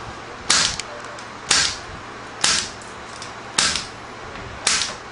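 Spring-loaded impact punch-down tool snapping five times, about once a second, as wires are punched down into the patch panel, each sharp snap followed by a small click.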